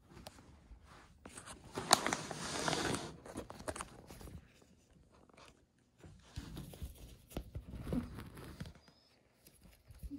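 Rustling and scuffing of a heated carpet's fabric as a cat burrows underneath it, loudest about two to three seconds in, with a second, softer stretch of rustling later.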